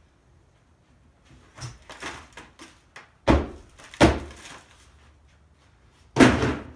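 Black plastic worm bins being handled and knocked: rustling and light clatter, then three loud hollow thuds about three, four and six seconds in.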